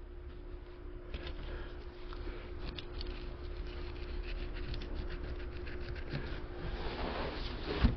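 A fillet knife scraping and cutting through a sheepshead, heard as a run of small irregular scratches and clicks over a faint steady hum.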